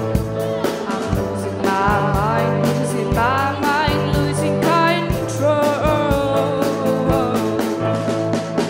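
Live band performance: a pop-rock song with sung vocals by young women over sustained chords and a steady drum beat.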